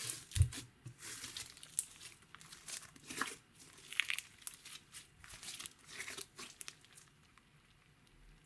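Slime being squeezed and stretched by hand, giving irregular sticky crackles and clicks that die away near the end.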